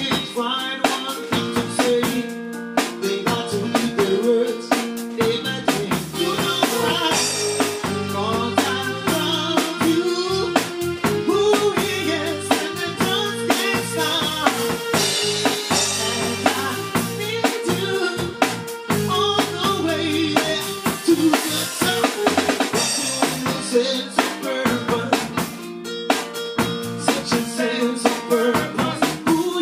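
A live band playing, with drum kit (snare rimshots and bass drum), electric bass guitar and keyboard.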